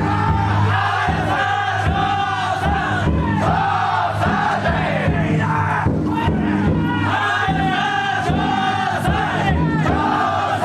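A large group of men singing and shouting a festival chant together as they carry a futon-daiko drum float, with occasional sharp beats through the singing.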